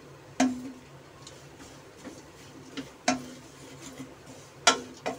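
Spatula stirring grated coconut in an aluminium kadhai, knocking against the pan now and then: three sharp knocks, about half a second in, about three seconds in and near the end, each with a short ring from the pan, and softer taps and scrapes between.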